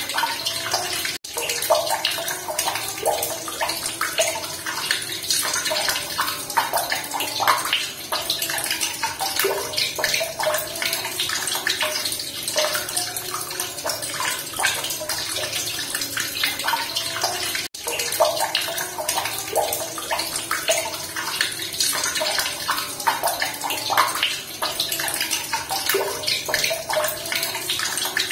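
Steady running water, splashing and gurgling, with two momentary dropouts, one about a second in and one about two-thirds through.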